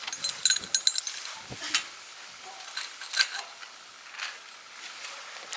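Light metallic clicks and clinks of a metal trellis's parts and hardware being handled during assembly, scattered through the first couple of seconds and again about three seconds in.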